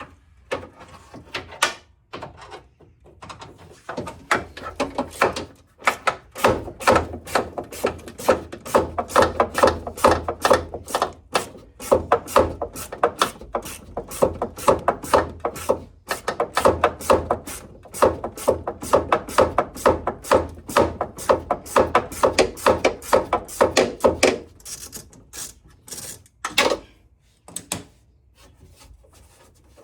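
Hand ratchet clicking in a fast, even run of strokes while undoing a screw, in two long runs with a short break about midway.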